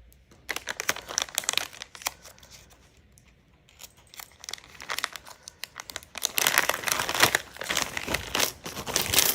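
Packaging being handled and opened, crinkling and rustling in two spells: one about half a second to two seconds in, and a longer, louder one from about six seconds on.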